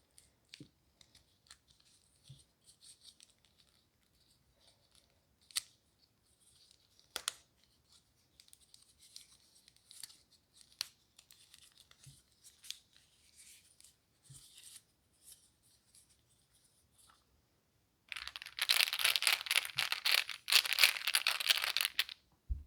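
Fidget toys being handled for ASMR: faint scattered clicks and soft rustling, with a few sharper clicks, then a loud dense crackling crinkle starting near the end.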